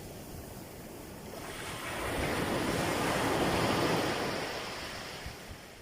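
Sea waves breaking: a wash of surf that swells over about two seconds, peaks in the middle, then recedes and fades.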